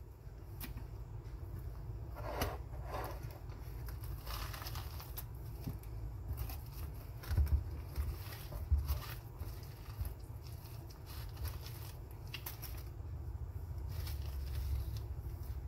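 Fingers scraping and tearing the seeds and stringy pulp out of a halved spaghetti squash, in short irregular wet rips and scrapes. The squash is an older one, so the guts peel out easily.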